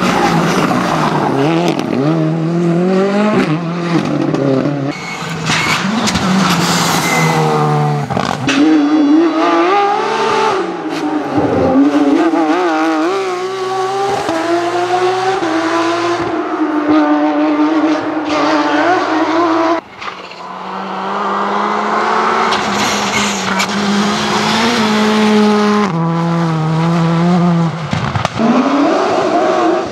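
Rally cars, a Ford Fiesta and then a Porsche 911, passing at racing speed one after another. Their engines rev up and drop back again and again through gear changes, and the tyres squeal through the corners.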